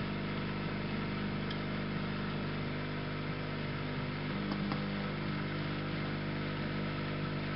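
Hot air rework station running steadily, its blower sending out heated air with a constant hum and hiss while the solder heats toward melting. A couple of faint ticks sound through it.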